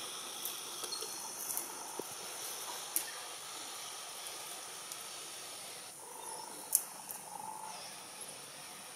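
Steady outdoor background hiss with a faint, even high-pitched tone running through it, and a few short sharp clicks, the loudest about seven seconds in.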